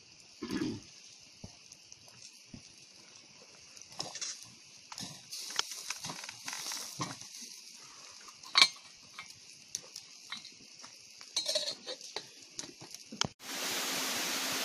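Small crackles from a campfire, with metal clinks and knocks as the lid of a billy on the cooking grate is handled; the sharpest clink comes about two-thirds through. Near the end the sound cuts to a steady hiss.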